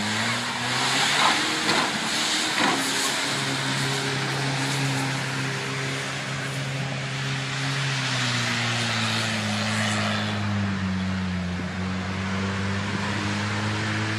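Off-road 4x4's engine running under load, its pitch climbing about a second in, holding, dropping off around eight to ten seconds in and rising again near the end, over a steady hiss that is strongest in the first few seconds.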